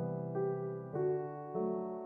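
Background solo piano music, with new notes struck about every half second over held low notes.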